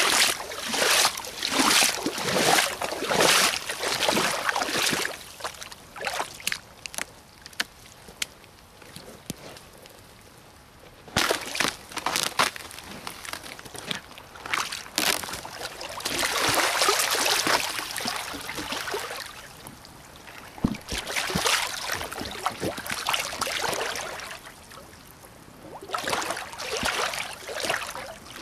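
Rubber boots wading through shallow running water: splashing strides, about two a second at first, fewer and quieter for a few seconds in the middle, then a longer slosh and more splashing steps toward the end.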